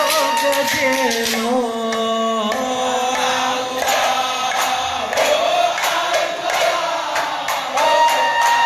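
A group of men chanting sholawat together in a winding, ornamented melody, with steady beats on hadrah frame drums. About two and a half seconds in, the clear single vocal line gives way to a fuller sound, and near the end the voices settle on a long held note.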